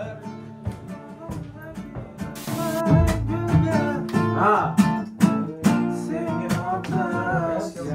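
An acoustic guitar being plucked and strummed, with a man's voice singing along from about three seconds in, louder from there.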